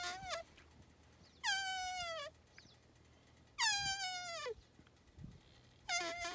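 Mule deer bleat imitated by a person's voice without a call: high, drawn-out bleats about every two seconds, each lasting most of a second and sagging in pitch at the end. One bleat is ending as the sound begins and another starts near the end.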